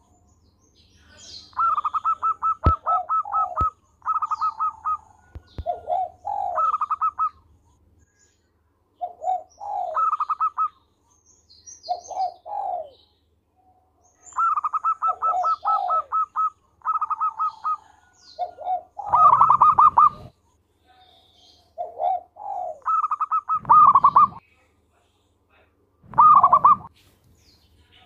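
Zebra dove (perkutut) singing its rhythmic song again and again: phrases of quick pulsed coos, each a second or two long, with short pauses between them. Faint high chirps of small birds sit behind it, and a few sharp clicks come early on.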